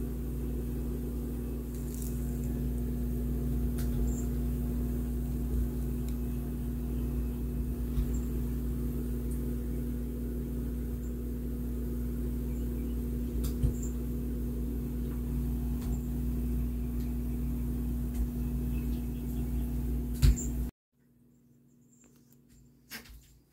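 Steady low electrical hum of a running appliance or motor, with a few light clicks, cutting off abruptly shortly before the end.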